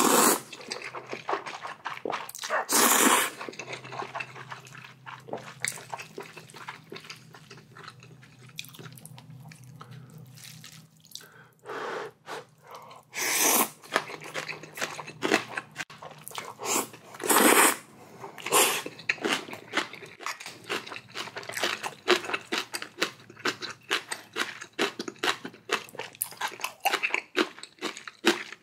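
A person eating ramen. Several loud slurps of the noodles pulled into the mouth in one go, with wet chewing and lip-smacking between them.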